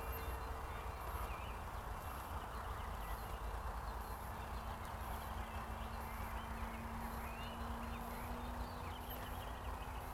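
Faint, steady drone of the Carbon-Z Cessna 150 RC plane's electric motor in flight, its pitch rising slightly near the end, over a steady low rumble.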